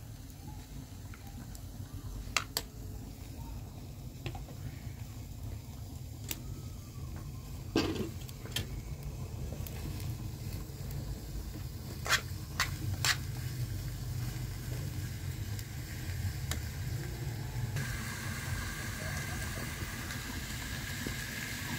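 Chopped onions frying in a pan over an open wood fire, with a steady low rumble and a handful of sharp clinks as a metal spoon stirs them. A brighter sizzling hiss comes up near the end.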